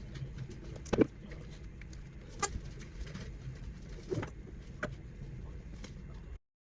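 Handling noise from laptop repair work: a few sharp clicks and knocks, the loudest about a second in, over a low steady rumble. The sound cuts off shortly before the end.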